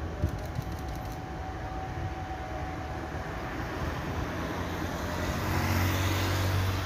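Jet engine noise from a landing Boeing 777-300ER, whose engines are GE90s, as it touches down and rolls out. It is a steady rush that swells louder about five seconds in, with a low hum and a rising hiss.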